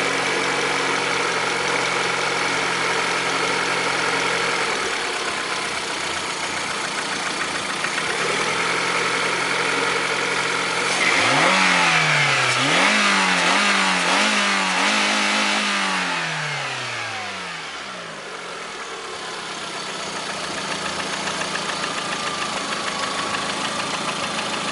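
Lada Priora's 1.6-litre 16-valve VAZ-21126 four-cylinder engine idling, then revved in a run of quick blips about eleven seconds in and falling back to idle, in a check of a knock that the owner hears in the engine.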